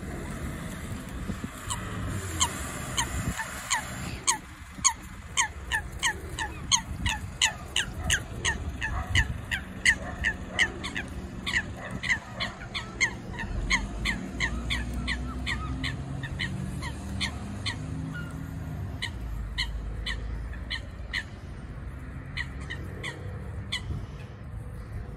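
Eurasian coots calling during a skirmish: a long run of short, sharp calls at about two a second that thin out near the end.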